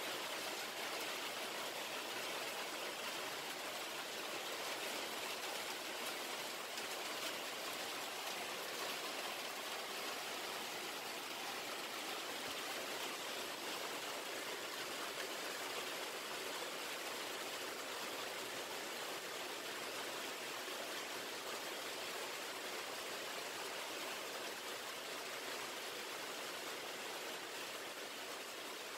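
Heavy rain pouring down in a steady, dense hiss, with no let-up.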